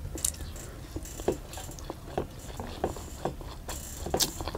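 Eating sounds: chewing with mouth smacks and fingers working rice on steel plates, an irregular scatter of short, soft clicks.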